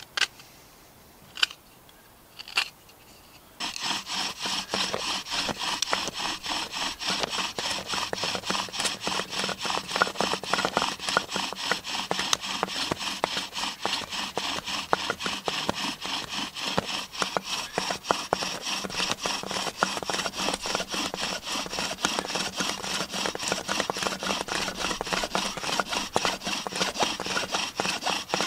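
Bow drill in use: the wooden spindle spinning back and forth in the hearth board's notch, a continuous rhythmic wood-on-wood rubbing that keeps up with the bow strokes, starting about three and a half seconds in as he drills to build the hot dust for an ember. Before it, three short scrapes of a knife shaving the spindle end.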